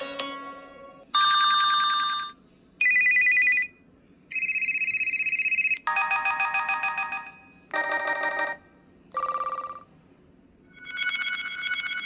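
HTC One X's preloaded 'Standard' ringtones previewed one after another through the phone's speaker: seven short electronic ring patterns, each about a second long, with brief gaps between them.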